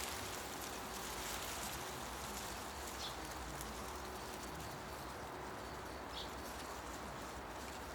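Wind rustling through tree leaves, a steady hiss, with a short high bird chirp about three seconds in and another about six seconds in.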